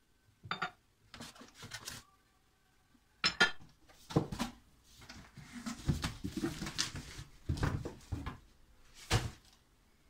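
Porcelain cups clinking and knocking as they are lifted out of a foam-lined cardboard box and set down, with a short ringing clink about half a second in. After that comes cardboard rustling and thumping as the box is folded shut and moved, ending in a sharp knock just after nine seconds.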